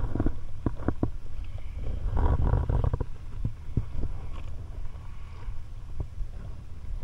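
Low rumble of wind on the microphone, with scattered light knocks and clicks as hands handle a fishing hook and line against a kayak's plastic deck.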